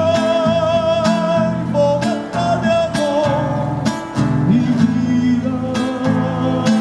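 Acoustic guitar strummed in a steady rhythm under a long, wavering held melody note that moves to other notes about two seconds in.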